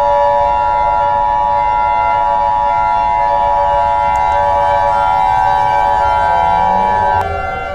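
Emergency Alert System attention signal: two steady high tones sounding together as one loud, unwavering alarm. It cuts off suddenly about seven seconds in, while a fainter steady drone carries on underneath.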